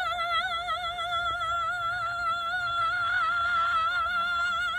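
A woman singing one long high note with a wavering vibrato, held throughout and cut off abruptly near the end.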